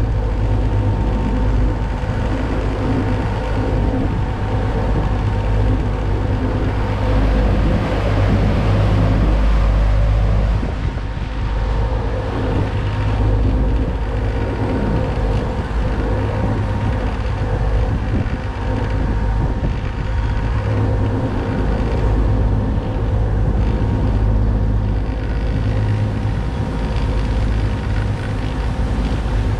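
Boat engine running steadily under way, a constant drone with deep rumble, with wind buffeting the microphone.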